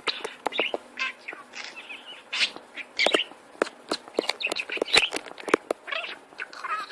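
A pet parrot chirping and making short calls, mixed with many sharp clicks and taps.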